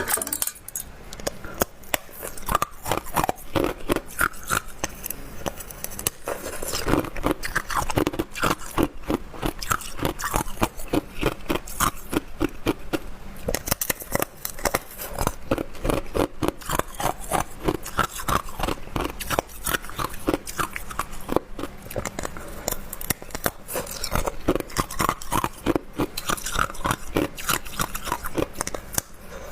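Hard clear ice being bitten and chewed close to the microphone: a rapid, unbroken run of sharp crunches.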